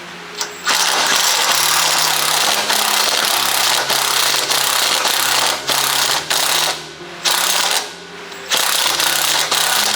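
Power wrench running on the suspension bolts of a 2008 Honda Pilot, backing them out so the rear stabilizer bar assembly can be lowered. A long run of motor whir and hammering, then two shorter runs after brief pauses about seven and eight seconds in, the motor pitch shifting as the trigger is worked.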